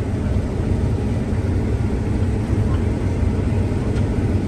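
Combine harvester running with a steady low drone.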